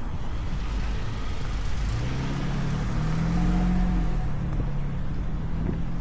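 A van driving past close by: engine hum and tyre noise swell to a peak about three and a half seconds in, then ease off, over a low rumble of wind on the microphone.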